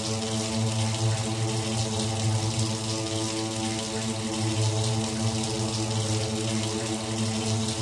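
Droning soundtrack music: a steady low hum with several held tones above it and a hiss over the top, unchanging throughout.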